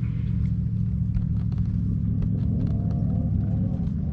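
Steady low rumble of a boat motor running, with scattered light clicks over it.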